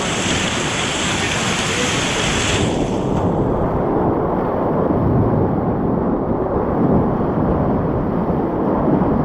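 Whitewater rapids rushing and churning around the kayak, loud and steady. About three seconds in, the bright hiss cuts out and the sound turns muffled, a low rumble of churning water.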